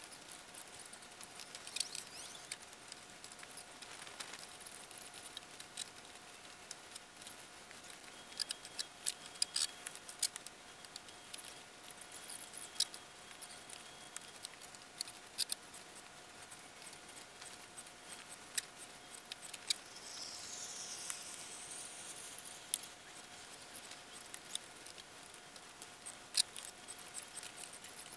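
Faint, irregular small clicks and ticks over a steady faint whine, with a brief warbling chirp about twenty seconds in.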